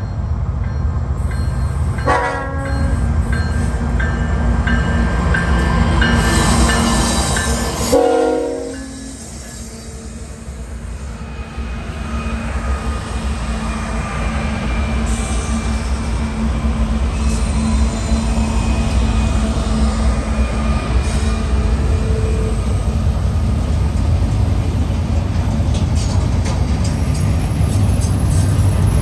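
BNSF freight train's diesel locomotives running with a steady heavy rumble. A long horn blast starts about two seconds in and cuts off about eight seconds in.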